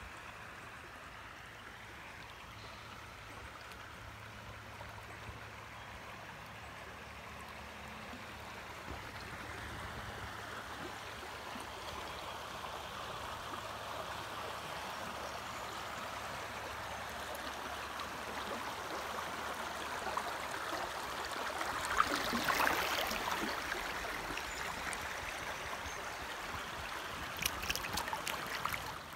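River current rushing and gurgling over a shallow riffle, heard from an inner tube at water level. It grows slowly louder as the tube drifts into faster water, with a burst of splashing about two-thirds of the way through and a few sharp splashes near the end.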